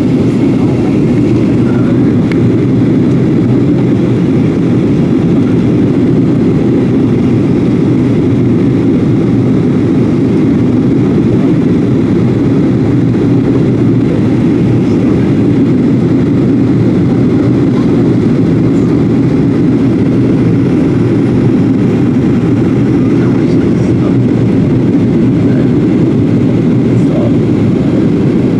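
Steady cabin noise of a jet airliner descending on approach: a constant low rumble of engines and rushing air as heard from a window seat.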